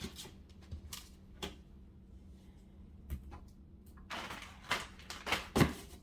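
Scattered clicks and light knocks of cables and a box being handled and set in place, sparse at first and coming more often from about four seconds in.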